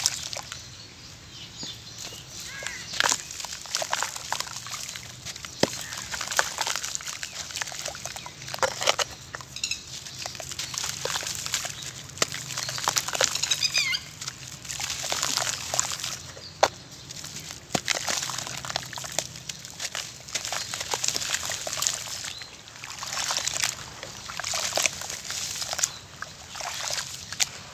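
Hands sloshing and squeezing wet charcoal-and-sand mud in a plastic basin of water: irregular splashes and slops with sharp little clicks throughout.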